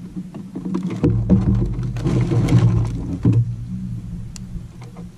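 Bow-mounted electric trolling motor (Minn Kota Ultrex) running with a low steady hum, with scattered clicks and knocks of tackle being handled on the boat deck.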